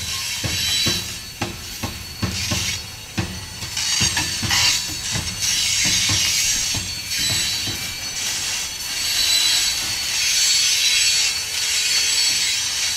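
Freight train's covered hopper cars rolling past: steel wheels knocking and clacking over the rail for the first several seconds, then a steady rushing hiss with a thin high wheel squeal.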